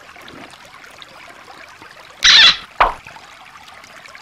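Shallow stream trickling over rocks, a steady background rush of water. About two seconds in there is a brief loud burst of sound, followed by a short knock.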